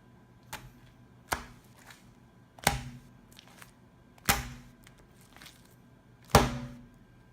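A fist punching a lump of sticky glue-and-borax slime: five sharp slaps, the last three loudest, each trailing off in a short wet squelch.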